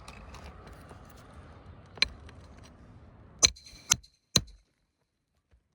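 Hammer blows on a steel shingle snake tool, driving a roofing nail under an overlapping shingle: four sharp metallic strikes, one and then three in quick succession about half a second apart.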